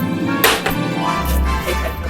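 Background music with held tones; a deep bass comes in a little over a second in.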